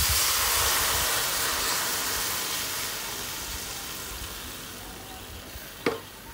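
Water poured into a hot non-stick wok of stir-fried vegetables and misoa noodles, hissing and sizzling as it hits the pan, the hiss dying away gradually. A short sharp click near the end.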